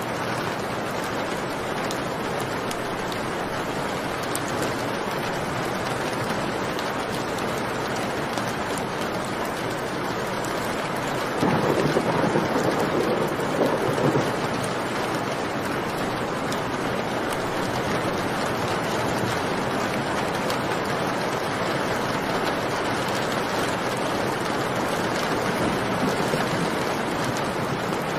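Steady heavy rain, with a rumble of thunder about halfway through lasting around three seconds.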